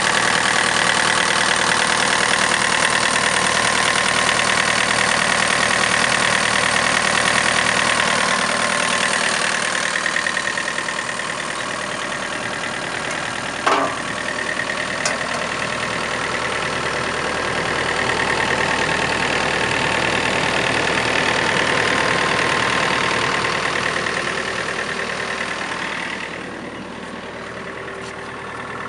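Diesel engine of a Komatsu PC50MR-2 mini excavator idling steadily. It grows louder and quieter as the microphone moves around the machine, with one sharp knock about halfway through.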